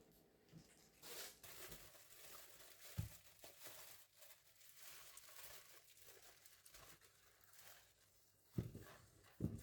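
Faint rustling and crinkling of something being handled, with a few soft thumps, one about three seconds in and two near the end.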